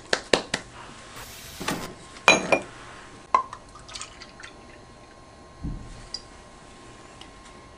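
Milk being measured and poured from a plastic measuring cup into a steel mixing bowl of flour and margarine crumbs. Light clicks and taps of the cup and jar come in the first few seconds, and there is a soft dull thump near the end.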